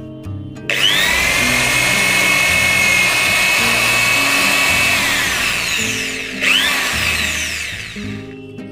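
Electric drill boring a hole into a thermocol (polystyrene foam) baseboard. Its motor whines up to speed about a second in, runs steadily for several seconds and winds down; it starts again briefly after six seconds and runs down near the end.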